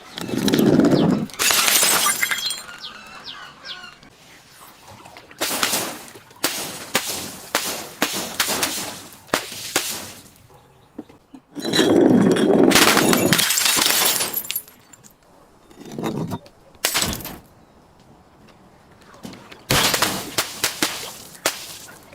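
Glass bottles and crunchy objects being smashed and crushed, breaking and crackling in about five separate bouts with short pauses between, the loudest bout about twelve seconds in.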